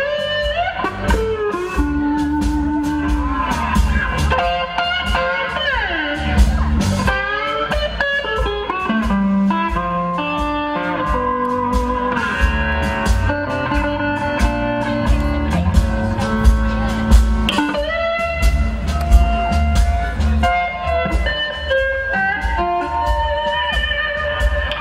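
Electric slide guitar soloing in a blues-rock style, played overhand across the top of the neck: gliding notes and long held notes over a steady beat.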